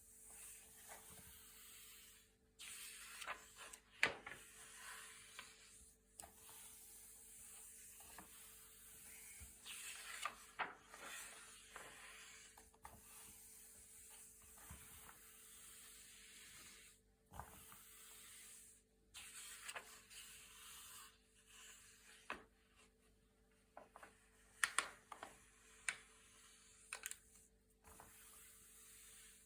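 Thick, glossy paper pages being turned and handled: short crackling swishes and crisp snaps come in clusters, with quiet gaps between, over a faint steady hiss.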